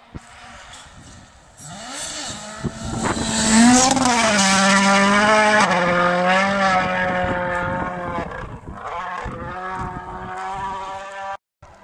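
Toyota Yaris WRC rally car's 1.6-litre turbocharged four-cylinder engine approaching flat out, passing close and fading away, loudest about four seconds in. Its engine note climbs as it nears, then falls in steps as it goes by.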